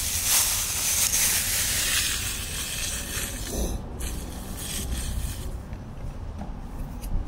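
Thin plastic bag crumpled in the hands, a dry crinkling that fades away about two to three seconds in.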